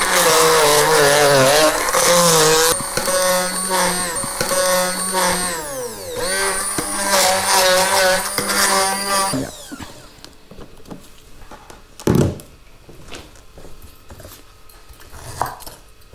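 Hand-held immersion blender grinding a spice paste of shallots, galangal, turmeric, chilli and oil in its beaker: a loud motor whine that wavers with the load, sags in pitch and picks up again around six seconds in, and cuts off after about nine seconds. A single thump follows about three seconds later, then a few light knocks near the end.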